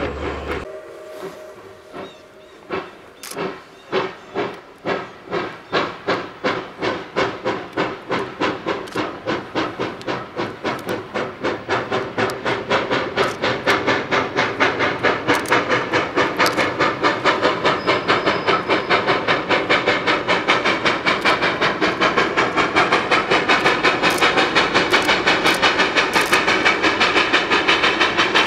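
Steam locomotive hauling a freight train under hard load, its exhaust chuffing in an even rhythm that quickens from about one beat a second to several a second and grows louder as it approaches.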